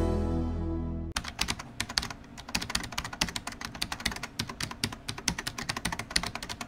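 The last of the outro music fades and breaks off about a second in. Rapid keyboard typing clicks follow, an irregular patter of many keystrokes a second, as a typing sound effect.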